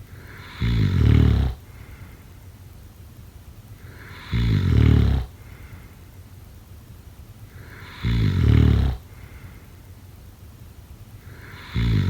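Snoring: four loud snores evenly spaced about four seconds apart, each lasting about a second, the last beginning just before the end.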